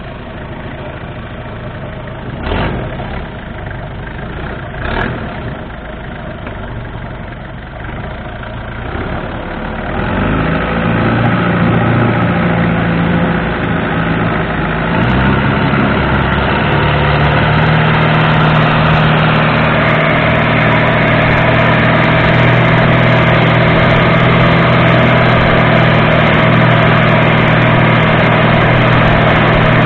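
Longtail boat's big diesel engine running slowly, with two short knocks, then about a third of the way in the throttle opens and the revs climb for several seconds before it settles into a loud, steady drone at speed with a rushing hiss over it.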